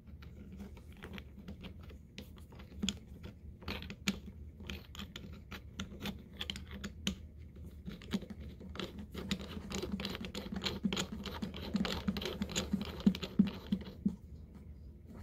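Irregular clicking and scratching as a garden-hose adapter is turned by hand onto the threaded water inlet of a Sun Joe SPX3000 electric pressure washer. The clicks come faster and louder over the last few seconds.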